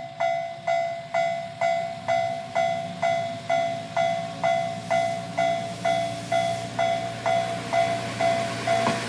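Japanese level-crossing warning bell sounding about two strikes a second, each strike ringing and fading before the next. Under it, an Isumi Railway diesel railcar approaches, its engine rumble growing louder near the end.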